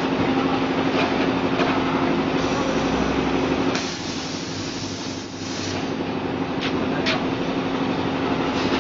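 Industrial stainless-steel frying machine running: a steady machine hum with a held tone and a few light clicks. The hum drops in level for a moment about midway.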